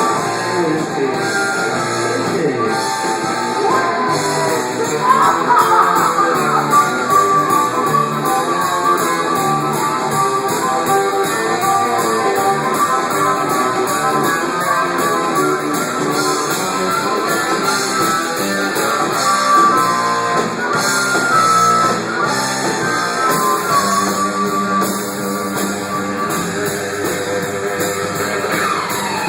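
A rock band playing live, with a guitar carrying the melody between the sung lines.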